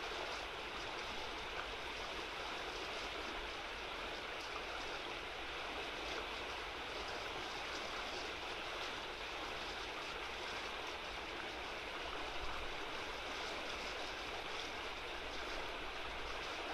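A small river running fast over shallows, its broken water making a steady rushing sound.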